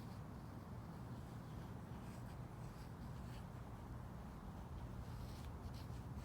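Faint scratching of a pen writing on paper, in short strokes, over a steady low background rumble of the open air.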